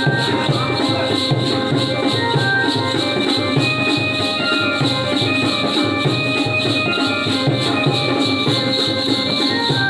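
Jakhadi (Bala) dance music: a dholki drum beating a fast, steady rhythm with jingling percussion and a high melody in long held notes over it.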